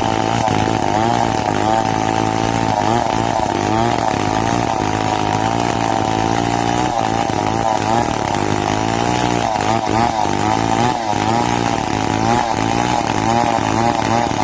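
Petrol chainsaw running under load as it cuts lengthwise along a log, its engine pitch rising and dipping as the chain bites.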